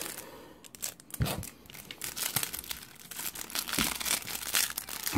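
Plastic card-pack wrapping crinkling and tearing as it is opened by hand, a rapid run of small sharp crackles, with two soft thumps, about a second in and near four seconds.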